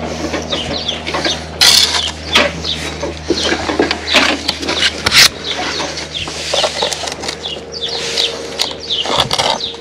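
A steel trowel scraping and chopping sand-and-cement mortar on a spot board during brickwork, in a run of short scrapes and clicks, with two sharp knocks about two and five seconds in over a steady low hum.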